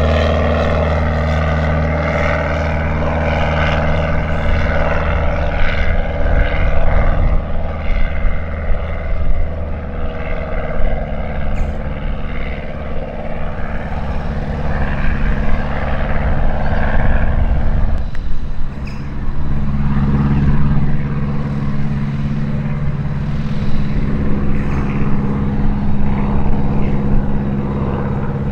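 An engine running steadily with a low, even hum; about nineteen seconds in its pitch steps up.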